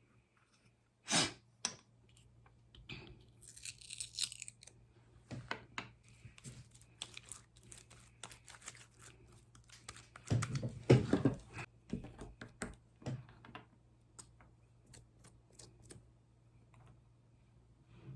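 Slime being handled close to the microphone: irregular sticky clicks and crackles, with a crinkling rustle about four seconds in and the loudest burst of squelching crackles around eleven seconds.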